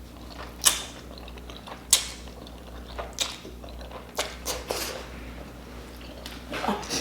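Close-miked mouth sounds of eating spicy noodles: a string of sharp wet smacks and clicks, a few bunched together midway, with a short pitched sound near the end.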